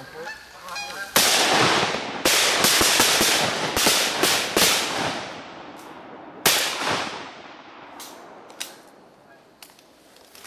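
Canada geese honking overhead, then several hunters' shotguns firing a rapid volley of shots over about four seconds, followed by another loud shot and two fainter ones.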